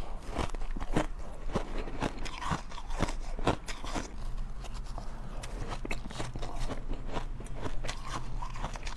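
Close-miked crunching of soft shaved ice being bitten and chewed, a dense run of irregular sharp crunches.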